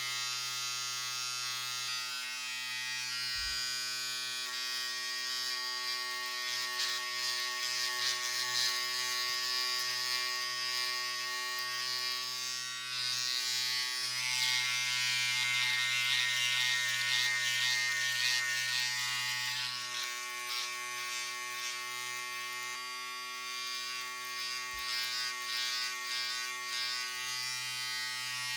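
Electric razor buzzing steadily while shaving, its motor hum joined by a rasping cutting sound that swells in the middle stretch as the head is worked over the stubble.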